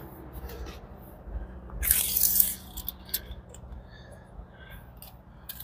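Footsteps scuffing on dirt and the rustle of a handheld camera being carried, with a brief louder scuff about two seconds in and a few small clicks.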